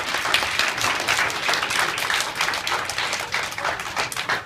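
A large audience, mostly children, applauding: many hands clapping together in a dense, steady patter.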